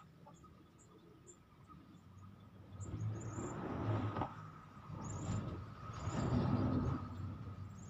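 Road traffic crossing a bridge: a low rumble that builds about three seconds in and swells again around six seconds.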